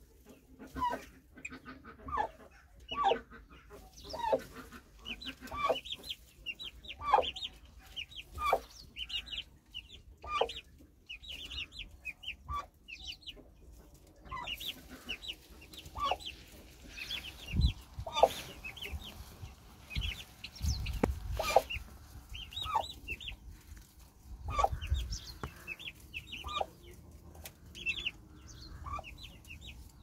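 Chicks peeping continually: many short, high, falling cheeps, with louder calls about once a second. A few dull low bumps come in the second half.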